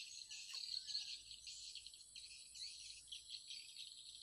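Insects chirring in a dense, high-pitched chorus that wavers in level.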